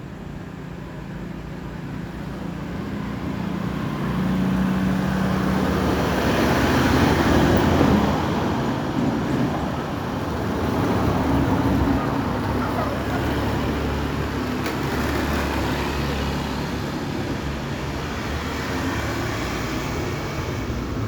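Motor vehicle traffic noise: a low engine hum with tyre and road noise that grows louder over the first several seconds, then holds fairly steady.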